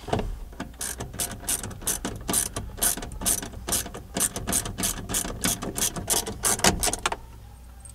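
A hand ratchet clicking rapidly and evenly, about four clicks a second, as it drives a stock screw in to fasten a new door speaker; the clicking stops about seven seconds in, once the screw is home.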